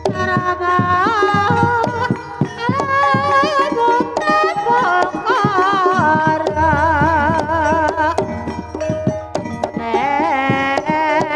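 Banyumasan gamelan music for an ebeg (kuda kepang) horse dance: a sinden, a female singer, sings a wavering, ornamented melody over steady hand-drum strokes and the gamelan ensemble.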